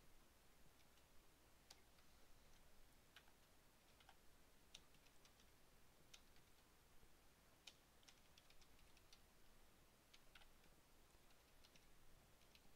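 Faint, irregular keystrokes on a computer keyboard, typing a command, over near-silent room tone.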